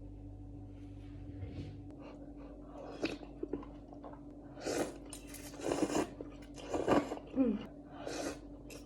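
A person eating instant ramen noodles up close, with several short chewing and eating mouth sounds from about three seconds in, over a faint steady hum.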